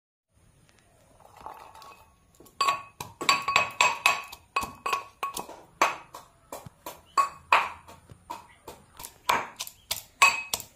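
Pestle pounding garlic and ginger in a small metal mortar cup: a run of sharp strikes, about two a second, each with a ringing metallic ping, starting a few seconds in.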